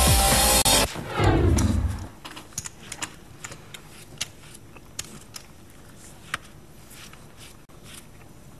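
A brief loud whooshing transition sound that sweeps down and fades within about two seconds. Then come sparse, irregular clicks of poker chips being handled and stacked at the table.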